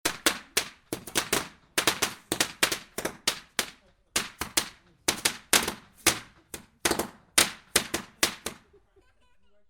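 Fireworks going off in an irregular string of sharp bangs, about two to three a second, each with a short ringing tail. The bangs stop about eight and a half seconds in.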